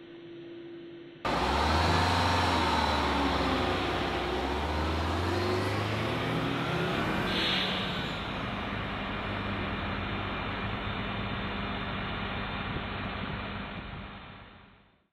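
A vehicle pulling away and gathering speed: a loud rushing noise starts suddenly, with a low motor tone slowly rising in pitch, then settles into a steadier run that fades out near the end.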